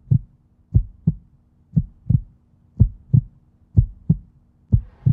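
Heartbeat sound effect: a deep double thump, lub-dub, repeating about once a second over a faint low hum.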